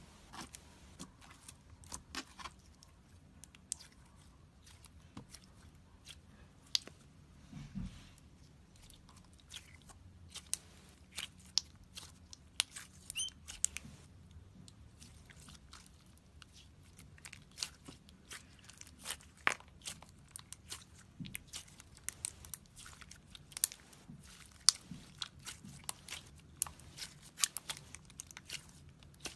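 Sticky slime being handled and mixed by hand, giving off irregular crackling pops and clicks as it is pressed and pulled apart, with the pops coming thicker in the second half.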